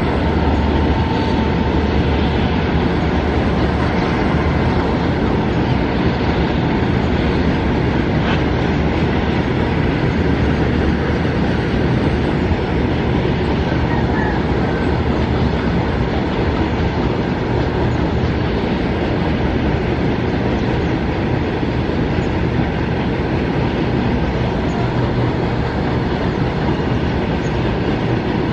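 Freight train of tank wagons rolling past, a steady, continuous rumble of wheels on the rails.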